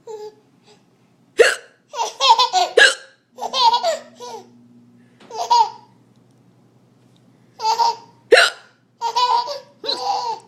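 A man's loud, sharp hiccups, twice, about seven seconds apart. Around them a small child laughs in bursts of rapid giggles.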